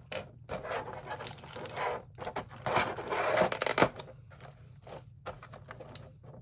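Small plastic figure parts and packaging handled at close range: rustling and scraping, with sharp clicks, the loudest about four seconds in.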